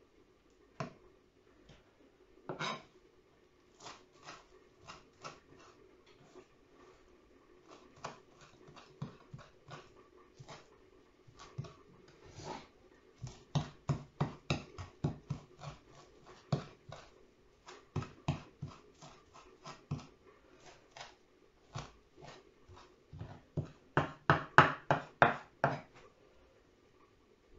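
Kitchen knife chopping fresh parsley on a wooden cutting board: the blade knocks on the board, scattered at first, then in quick runs of about four strokes a second around the middle and near the end, the last run the loudest.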